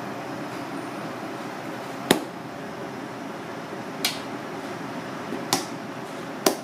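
Four short, sharp knocks or taps from hands and utensils at a sushi counter, spaced about one to two seconds apart, over a steady background noise.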